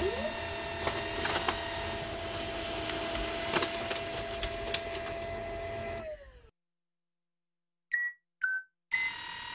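Synthesized motor sound of an animated pen plotter, made on an Obxd synth. A whine spins up at the start and runs steadily with a few light clicks while the paper feeds through, then winds down and fades out about six seconds in. After a second of silence come two short falling beeps, and the idle hum returns just before the end.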